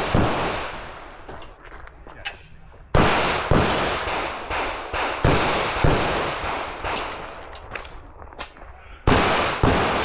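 Rapid gunshots from a competitor shooting a timed practical-shooting stage, roughly half a second apart, each with a ringing tail. A pause of about two seconds comes early on and a shorter one near the end, before the firing resumes.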